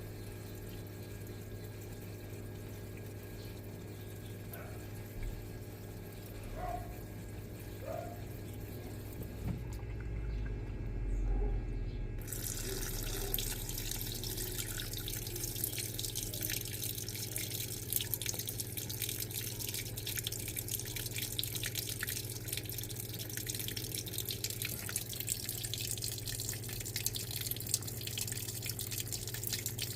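Electrolux LTA15 top-loading washing machine with a steady low hum; about twelve seconds in, water begins rushing steadily into the tub, as when the machine fills.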